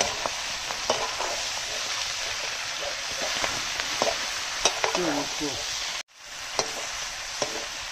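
Chicken pieces sizzling as they fry in a large black wok, with a ladle scraping and knocking against the pan as they are stirred. The sound cuts out for a moment about six seconds in.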